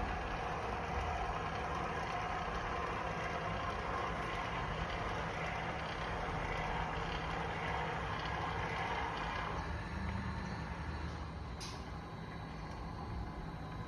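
Two 1022.101DC heavy-duty swing gate openers, 24V DC motors with gear drives, running steadily as the gates open on the remote's command. The drone drops to a quieter level about nine or ten seconds in, followed by a short click about two seconds later.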